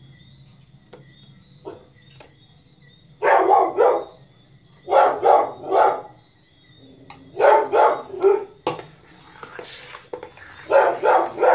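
A dog barking loudly in four short bouts of two or three barks each.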